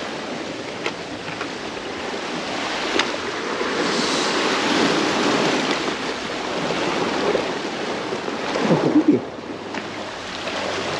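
Ocean surf washing against a rocky reef shore: a steady rushing wash that swells about four seconds in, with a few faint clicks. A short voice sound comes near the end.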